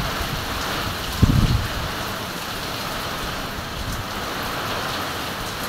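Heavy typhoon rain and wind making a steady hiss, with a brief low rumble about a second in.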